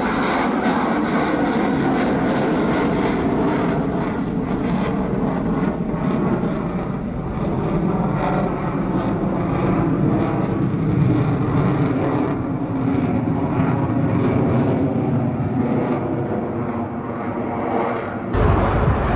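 Swiss Air Force F/A-18 Hornet's twin turbofan engines in a display flight: a loud, steady jet roar. Near the end it switches abruptly to a louder, deeper rumble.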